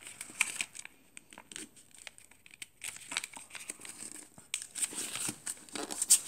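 Origami paper being folded and creased by hand: scattered crinkles and rustles. A sparse lull comes about a second in, and the crinkling grows denser from about four and a half seconds.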